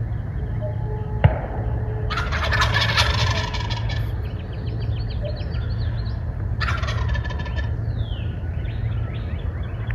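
Wild turkey gobblers gobbling twice, a long rattling gobble about two seconds in and a shorter one near seven seconds, with small birds chirping between. A single sharp click comes just after a second in, over a steady low rumble.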